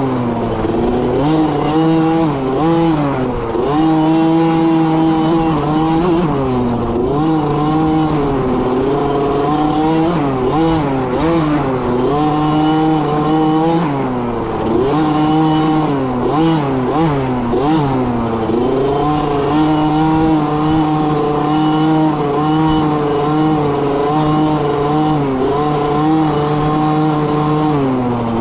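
Small dirt bike engine running under load on a trail, its pitch rising and falling over and over as the throttle opens and closes.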